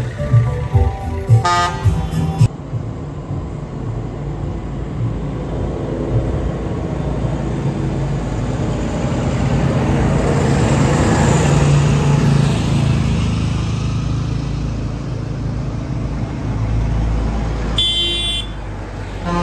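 A large tractor's diesel engine running as it drives slowly past close by, growing louder to a peak about halfway through and then fading. Music plays briefly at the start, and a short horn blast sounds near the end.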